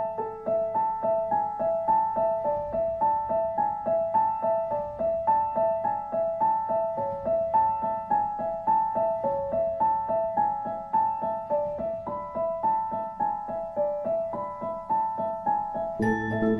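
Background music: a gentle piano-like keyboard plays a repeating pattern of single notes, about three a second. Lower notes join in near the end.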